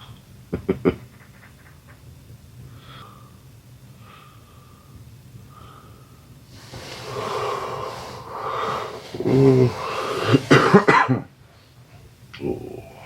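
A person coughing: a couple of sharp coughs about half a second in, then a longer loud stretch of heavy breathing and coughing from about seven to eleven seconds, and one more cough near the end, over a steady low hum.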